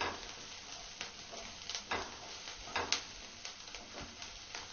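Wooden spatula scraping and knocking against a non-stick frying pan as sliced onions and green chillies are stirred in hot oil, a series of soft irregular strokes over a faint sizzle.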